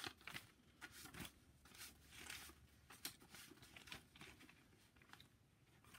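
Near silence with faint, scattered rustles and small clicks of something being handled.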